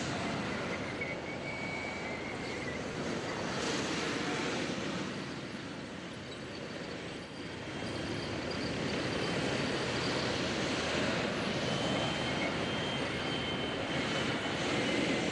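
Gas-turbine engines of T-80U tanks running as the tracked armoured vehicles drive about: a steady noisy rumble with a thin high turbine whine that comes and goes.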